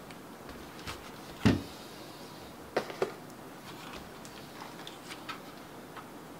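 Magnetic height feet being pulled off and snapped onto the underside of a Mountain Everest Max keyboard: a handful of sharp clicks and knocks, the loudest about a second and a half in, two close together around three seconds, then lighter ticks.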